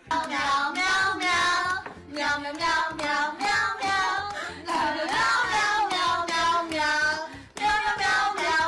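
A high voice singing a wordless melody in long held, bending phrases, with short pauses about two seconds in and near the end.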